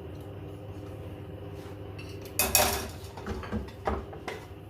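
A spoon scraping and knocking against a serving bowl as the last of the rice is cleared out of it. About halfway through comes one loud scrape, then several lighter knocks.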